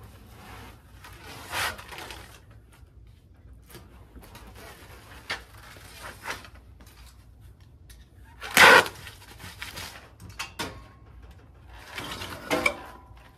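Split firewood clunking and clattering as pieces are handled and stacked into a bundle: a handful of separate knocks, the loudest about two-thirds of the way in.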